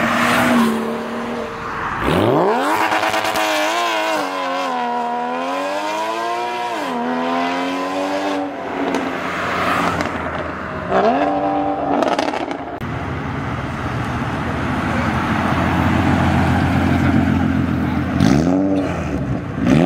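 Cars accelerating past one after another, engines revving. There is a long rising, wavering rev in the first half and a short rev around eleven seconds. A low, steady engine rumble follows, and another car revs up near the end.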